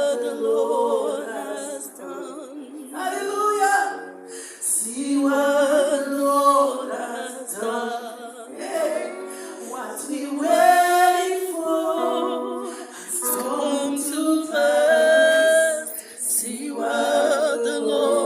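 Worship singing: voices sing in phrases of a few seconds each, with vibrato and short breaks between phrases.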